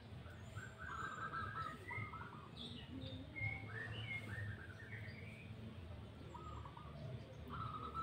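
Several birds calling from the treetops: short chirps and whistles, some in quick stuttering runs, over a low steady rumble.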